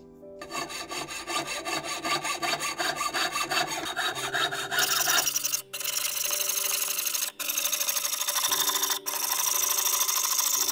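Jeweller's saw cutting a silver spoon blank held on a wooden bench pin, with quick rasping strokes. About halfway through the strokes run together into a denser, continuous rasp, broken by short pauses.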